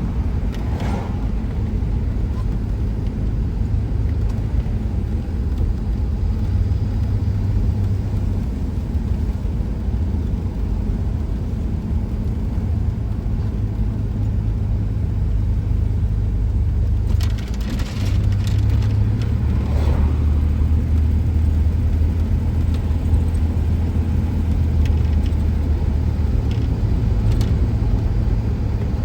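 Steady low rumble of a car driving, engine and road noise, with a few faint knocks a little past halfway.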